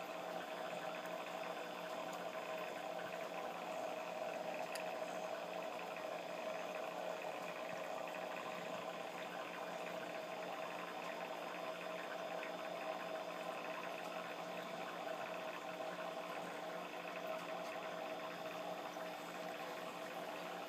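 Aquarium pump running with a steady hum over bubbling, trickling water.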